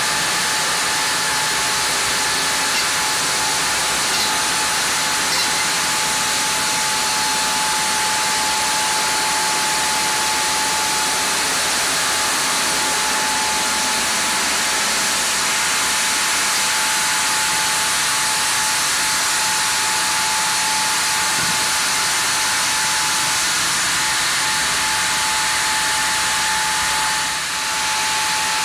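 Vertical log band saw running with a steady hiss and a constant high whine as it saws a Japanese kalapanax (sen) log. The level dips briefly near the end.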